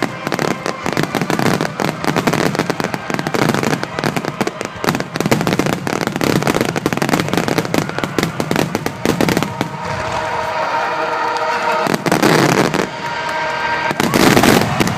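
Fireworks display with shells bursting and crackling one after another, with two heavy booms near the end. A held tone runs under the second half.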